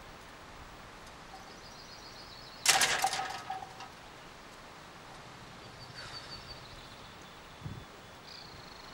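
A sudden loud metallic clank about a third of the way in, ringing briefly as it dies away, over faint outdoor ambience with a few faint high bird chirps.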